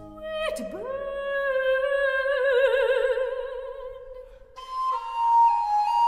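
Baroque aria with period orchestra: one long held note scoops up into pitch, swells with slowly widening vibrato, then fades. About four and a half seconds in, a recorder takes up the bird-like obbligato line with quick ornamented notes and trills.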